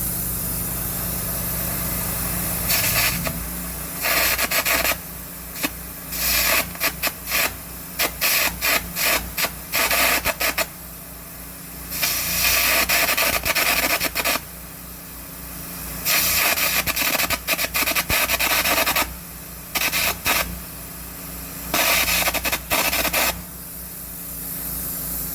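Air carbon arc gouging with a 3/16" carbon rod at about 250 amps: a harsh crackling, hissing blast of arc and compressed air blowing out molten weld metal, struck in many bursts, some short and choppy and some lasting a couple of seconds. Under it the Miller Trailblazer 325 welder-generator's engine hums steadily.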